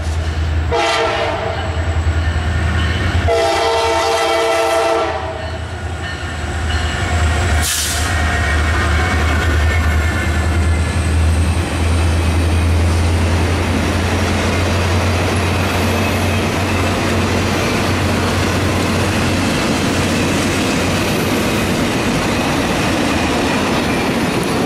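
Diesel locomotive air horn blowing a short blast about a second in, then a longer one, at a grade crossing. Then the locomotives' diesel engines rumble past, followed by a long string of passenger cars rolling by with steady wheel-on-rail noise.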